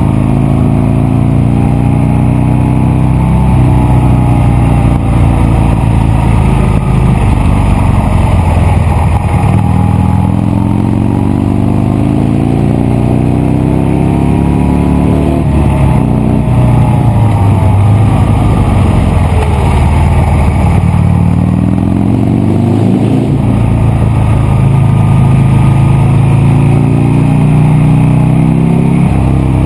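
Buell Lightning XB9SX's 984 cc air-cooled V-twin through a ProSeries aftermarket exhaust, under load, its revs climbing and falling several times as it pulls up through the range and backs off. The engine is loud throughout.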